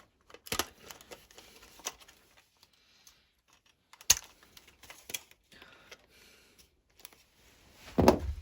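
Sharp plastic clicks and light rattling from a smoke alarm being handled: about four distinct clicks, with a louder knock near the end.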